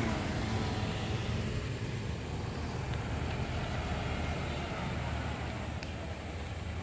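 Vehicle engines on a steep grade: a car's engine pulling uphill fades away in the first second, leaving a steady low engine rumble.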